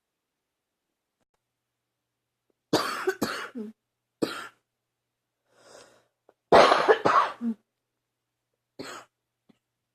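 A person coughing in bouts from an allergy flare-up: a quick run of coughs about three seconds in, a single cough, then a louder run of coughs past the middle and one last short cough near the end.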